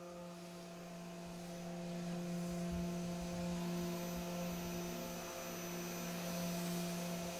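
Ambient drone from a film score: a steady low humming tone with fainter higher tones above it, under a hiss that swells over the first few seconds.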